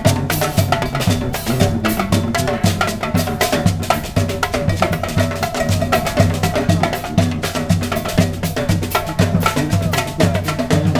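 A street brass band playing live, with a repeating bass line under the horns and busy drum and wood-block-like percussion keeping a steady beat.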